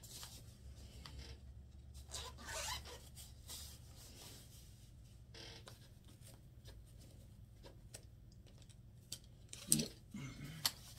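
Faint handling noises of paint brushes being rummaged in a plastic brush case: soft rustles and light clicks, with a sharper knock and clatter near the end. A low steady hum runs underneath.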